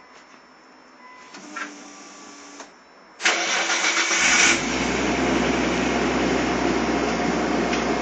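Nissan Laurel C35 engine started about three seconds in: a loud burst of starter cranking, then the engine catches and settles into a steady idle. It breathes through twin exhaust tips whose silencer inserts are fitted backwards.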